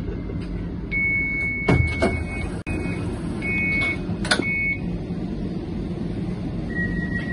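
Inside a CAF Urbos 100 tram standing at a stop: a steady low hum from the tram's equipment, with a run of high electronic beeps starting about a second in and two or three sharp knocks among them. Near the end a long steady high tone begins.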